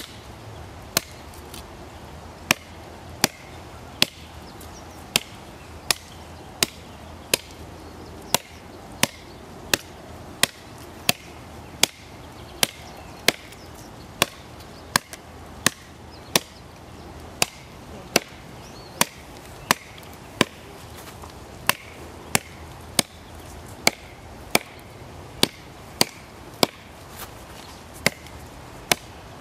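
Gossman 9-inch Tusker chopper knife striking into the base of a small tree trunk: sharp chopping blows, one after another, at about one every three-quarters of a second.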